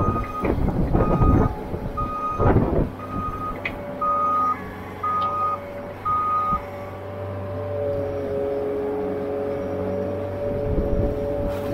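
Skid loader reversing, its backup alarm beeping about once a second over the steady running of the engine, with a few loud clanks in the first three seconds. The beeping stops about halfway through, and a steady whine comes in as the machine drives forward.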